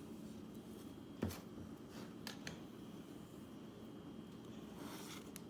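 Quiet handling sounds of a knife spreading peanut butter onto a cardboard toilet-paper roll, with one sharp knock about a second in and a couple of light clicks a second later.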